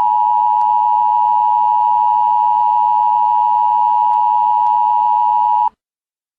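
Emergency Alert System attention signal: a loud, steady two-tone beep near 1 kHz (the 853 Hz and 960 Hz pair) that cuts off abruptly near the end.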